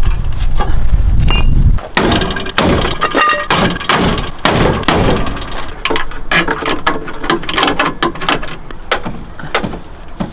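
Wind buffeting the microphone for about the first two seconds, then a run of irregular metallic clicks, clanks and knocks as a ratchet strap is worked to pull out the crumpled rear bodywork of a Nissan 240SX.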